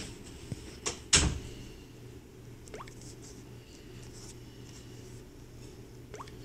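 A sharp knock about a second in, with a couple of lighter clicks just before it, then two faint short rising squeaks over a steady low hum.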